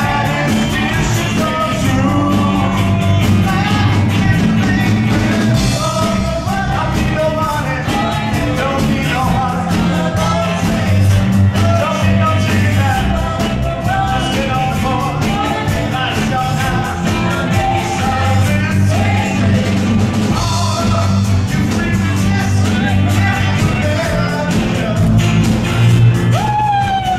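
Live band playing an upbeat rock-and-roll song: singers over bass guitar and keyboard with a steady beat.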